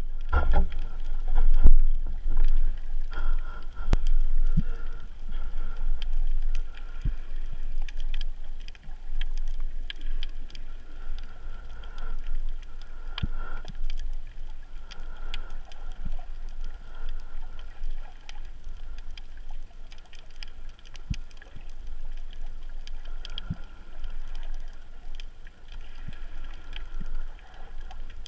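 Underwater sound picked up by a GoPro Hero 3 in its waterproof housing, moved through the water on a speargun: a muffled low rumble of water against the camera, with scattered sharp clicks and crackles. It is loudest in the first few seconds.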